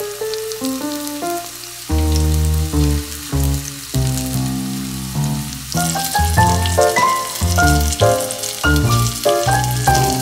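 Background music with a melody of distinct notes, over the sizzle of floured chicken pieces shallow-frying in oil in a pan. The sizzle is stronger from about six seconds in.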